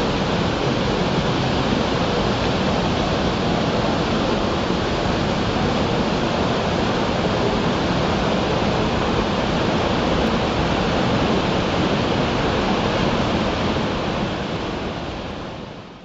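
Waterfall pouring over a rock face into a shallow pool: a steady rush of falling water that fades out near the end.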